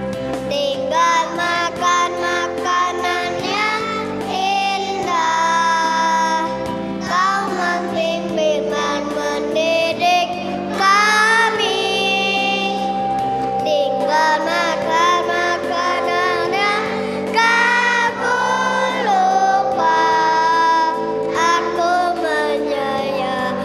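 Kindergarten children's choir singing together over instrumental backing music.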